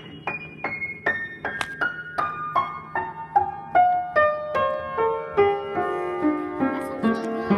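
Piano played one note at a time with one finger, about three notes a second, in a slow run that steps steadily down from high notes to the middle of the keyboard.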